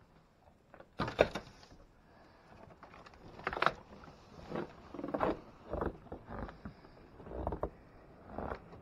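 A storm door is pushed open with a sharp clunk about a second in, followed by footsteps crunching through deep snow, about one step a second.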